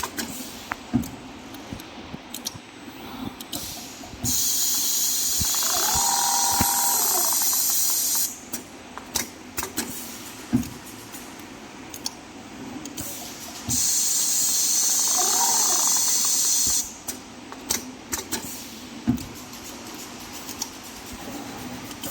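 Hiss of compressed air on a rotary head leather sewing machine, coming twice in long stretches of three to four seconds. Between them are quieter stretches of mechanical clicks and knocks. A short whine rises and falls during each hiss.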